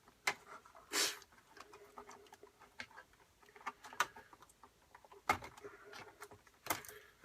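Scattered sharp clicks, taps and light scrapes of hands pulling small cable connectors off an iMac's logic board, over a faint steady hum.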